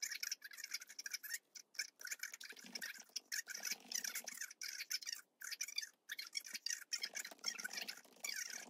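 Fast typing on a laptop keyboard: a rapid clatter of light key clicks in runs, broken by short pauses.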